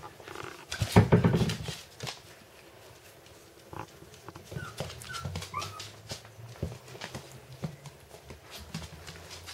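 Puppies playing: short, high, rising whimpers and squeaks, with light clicks and pattering of paws on a wooden floor. A loud, low burst about a second in is the loudest thing.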